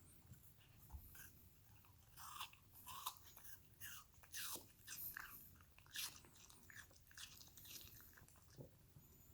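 A Pomsky dog chewing a slice of apple: a string of short, crisp crunches as it bites through the fruit.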